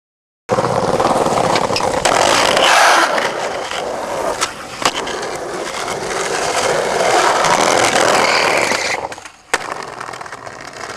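Skateboard wheels rolling loudly on asphalt as the skater pushes along, with a few sharp clacks of the board. The rolling dies down briefly near the end, and a single sharp clack follows.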